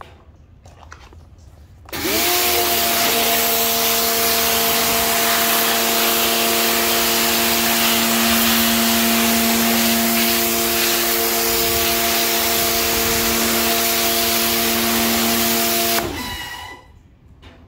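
Electric pressure washer starting up about two seconds in: its motor and pump hum rises briefly to a steady pitch under the loud hiss of the water jet blasting concrete. It cuts out about two seconds before the end and the sound dies away.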